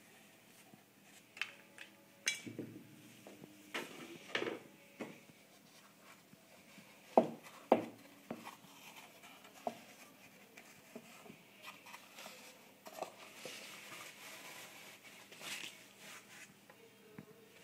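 Handling noise as a printed T-shirt and its flat board are moved about: irregular taps, knocks and rustles, with two sharp knocks about half a second apart around seven seconds in.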